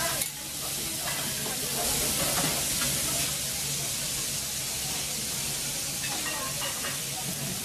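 Kobe beef slices sizzling steadily on a hot teppanyaki iron griddle.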